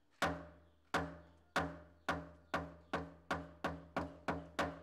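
Upright wooden log drum beaten with a wooden stick: about eleven hollow knocks, each ringing briefly with a low tone, coming faster and faster.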